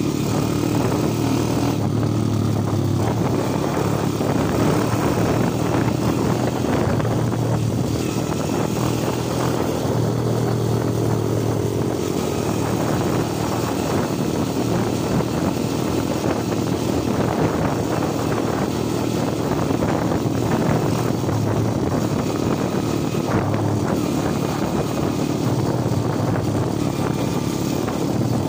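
Underbone motorcycle's single-cylinder engine running steadily under way, its pitch rising and falling slightly with the throttle.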